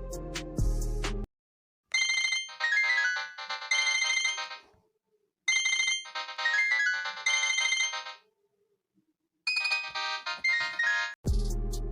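Mobile phone ringtone: a short, bright electronic melody with stepping notes, played three times with brief pauses between. Background music with drums plays before it and comes back near the end.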